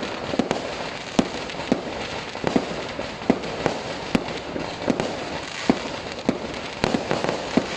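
Fireworks going off: a run of sharp bangs at irregular intervals, about two or three a second, over a steady background hiss.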